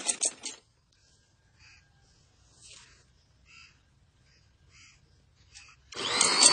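Sewing machine running fast and stitching, stopping about half a second in and starting up again near the end. In the pause, a few faint crow caws.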